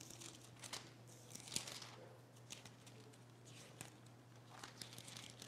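Near silence: faint rustling and scattered soft clicks of book pages being turned and handled, over a steady low hum.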